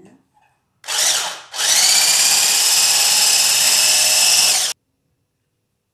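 Electric stick blender with a whisk attachment beating egg whites in a bowl: a short burst about a second in, then running steadily for about three seconds before cutting off suddenly.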